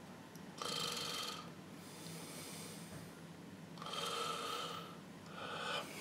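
A man's breathing heard close by: three audible, hissy breaths, about a second in, about four seconds in and a shorter one near the end, over faint room hiss.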